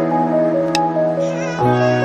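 Background music: held chords with a melody of short notes on top, the chord changing about a second and a half in, and a light high tick a little before it.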